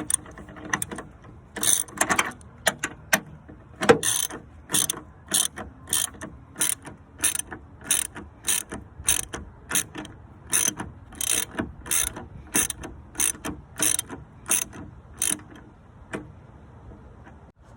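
Hand ratchet wrench clicking in short, even strokes, about one and a half a second, while the three upper strut-mount nuts are loosened. The strokes stop about two seconds before the end.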